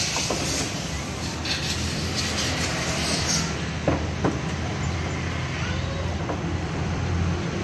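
Steady low mechanical hum, with two short metallic clicks about four seconds in as the front shock absorber strut is handled in the wheel well.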